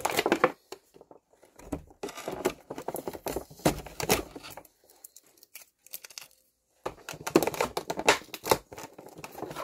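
Packaging of a boxed toy statue being opened by hand: tearing and crinkling in three bouts with short quiet gaps between them.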